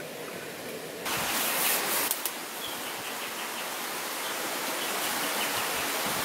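Steady outdoor forest ambience: an even hiss that steps up in level about a second in, with faint, rapidly repeated high chirps from small creatures in the background.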